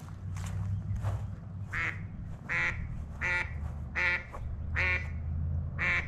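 A duck quacking on the water: about six single quacks in a steady series, roughly one every three-quarters of a second, starting about two seconds in. A couple of footsteps on grass come before the quacks.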